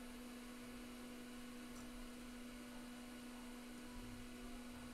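Steady low electrical hum with a faint hiss behind it.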